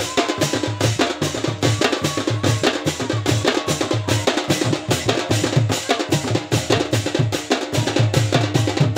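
Loud percussion-led dance music with a fast, steady drum beat and deep bass pulses, a melody line running above it.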